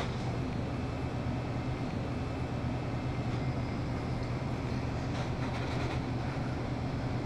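Steady low hum of a shop's room noise, with a few faint rustles about five seconds in.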